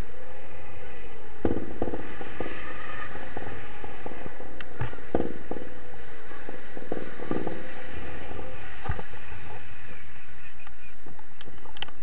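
Wind rushing over the microphone of a camera carried in flight on a tandem paraglider, with irregular gusty buffets.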